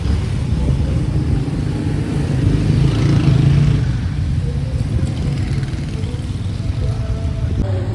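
Motorcycle engine running steadily while being ridden, rising briefly about three seconds in.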